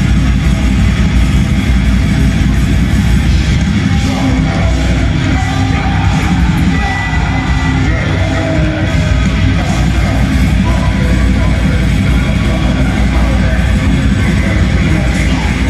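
Live black metal band playing loud: distorted electric guitars, bass and drums, with harsh yelled vocals over them.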